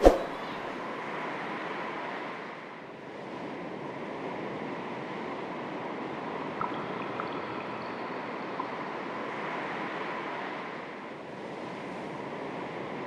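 Small sea waves lapping on the shore, a steady wash that swells and eases in slow surges about eight seconds apart. A single sharp knock right at the start is the loudest sound, and two faint clicks come in the middle.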